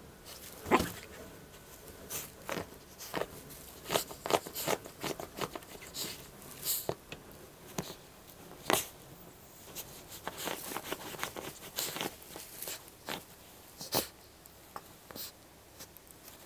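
Siberian husky puppy digging at a cushion and bedding with its front paws: irregular scratches and rustles of claws on fabric, some sharper than others.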